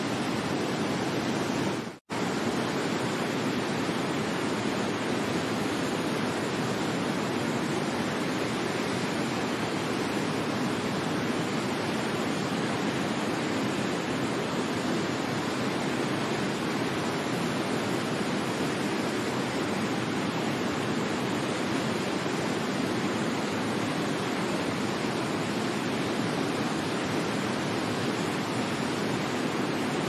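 Waterfall: a steady, even rush of falling water, which cuts out for an instant about two seconds in.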